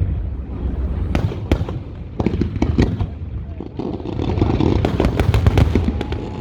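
Fireworks going off: separate sharp bangs over a low rumble, then a dense run of crackling from about two seconds in that builds and is loudest past the middle.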